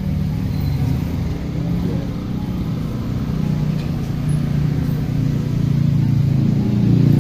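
A motor vehicle engine running steadily, a low rumble that grows louder near the end.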